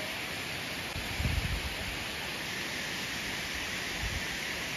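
Steady rush of shallow stream water flowing over rock ledges below a dam, with two brief low rumbles, about a second in and again near the end.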